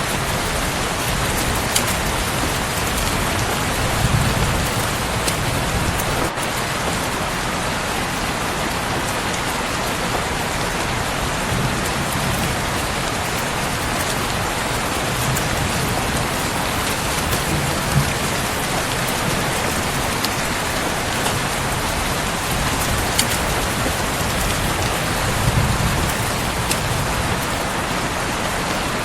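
Steady, dense rain falling, with scattered faint drop clicks. A few brief low swells rise under the rain every several seconds.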